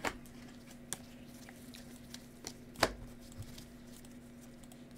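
Soft clicks and taps of a stack of trading cards being shuffled and handled, with a few sharper clicks (the loudest a little before three seconds in), over a faint steady hum.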